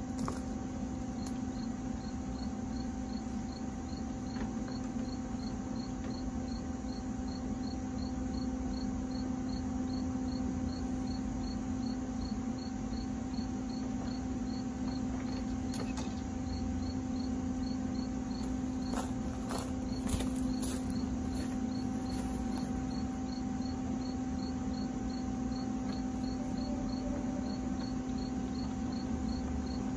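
A cricket chirping steadily, about three short high chirps a second, over a steady low hum, with a few faint knocks partway through.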